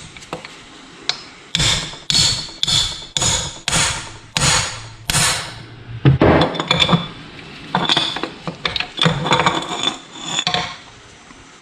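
Hammer blows on metal, working at a stuck engine part that won't come out while the pistons are removed. First comes a run of about seven even blows, roughly two a second, then more irregular taps and clinks.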